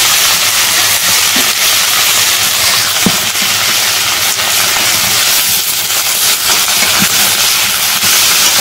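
Eggplant and green tomato pieces sizzling in hot oil in a wide iron kadai: a loud, steady hiss with a few small crackles.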